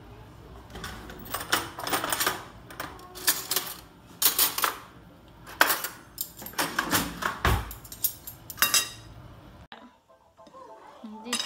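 Metal cutlery and dishes clinking and clattering in a string of sharp knocks and rattles, including spoons rattling in a kitchen cutlery drawer as one is picked out, over a faint low hum. The clatter cuts off abruptly near the end.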